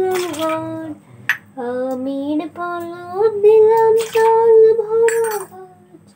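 A woman singing a Bengali devotional song to the goddess Lakshmi, solo, in long held notes that glide between pitches. A few sharp clinks cut in among the phrases.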